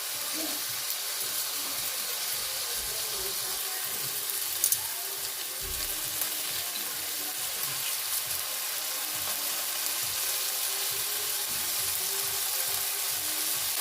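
Chicken breasts sizzling in hot vegetable oil in a pot, a steady high hiss of frying, with one short click near the middle.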